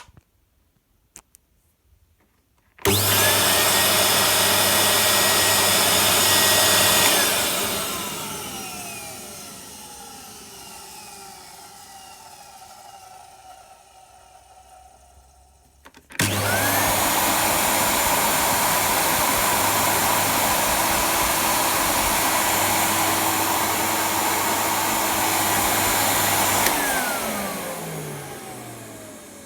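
Miele S 200 de luxe vacuum cleaner motor switched on, running steadily for a few seconds, then switched off and winding down with a falling whine; it is switched on again about halfway through, runs for about ten seconds and winds down once more near the end.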